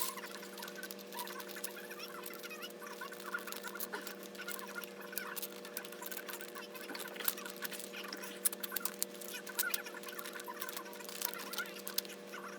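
Scattered small clicks and taps of metal parts being handled while a manual transmission is taken apart, over a steady electrical hum.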